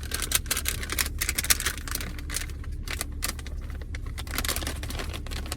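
Plastic bag crinkling and crackling in quick, irregular clicks as slime is put into it and the bag is pressed shut.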